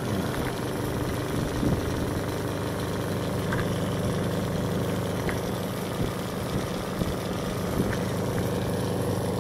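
Vacuum pump running steadily with a constant hum, holding vacuum on a bagged carbon fiber layup.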